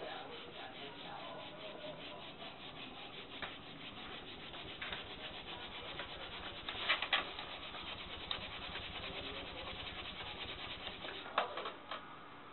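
Bamboo fire saw: a bamboo piece rubbed rapidly back and forth across a split bamboo tube, a fast, even rasping rhythm as friction heats the wood to make fire. Two louder knocks come about seven and eleven seconds in, and the sawing stops just before the end.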